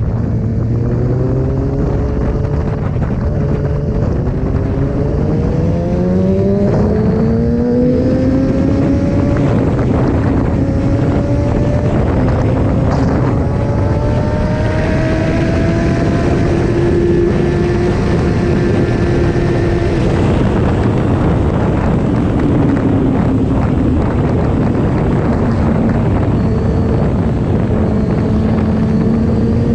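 Kawasaki Ninja ZX-6R inline-four sport-bike engine under hard acceleration: its pitch climbs and drops back as it shifts through the gears several times, holds high at speed, eases off, then climbs again near the end. Wind rush on the microphone runs underneath.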